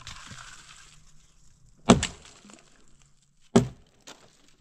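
Two hard, sharp whacks about a second and a half apart, each followed by a lighter knock, with a faint hiss in the first second.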